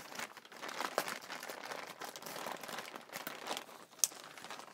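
Parcel wrapping crinkling and rustling irregularly as it is cut and pulled open by hand, with one sharp click near the end.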